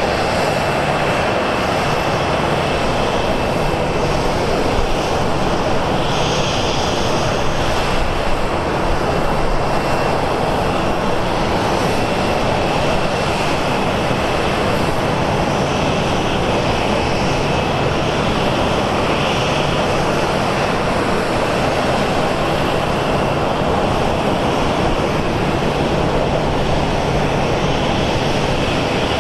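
Aircraft engine noise running steadily at an even level, with a thin high whine above the rush.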